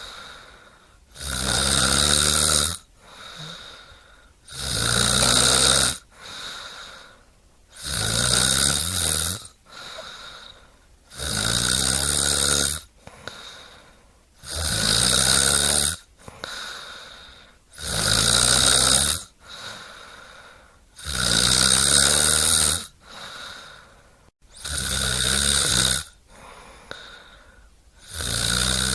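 Snoring in a steady rhythm: nine loud snores, one about every three and a half seconds, each about a second and a half long, with a quieter breath out between them.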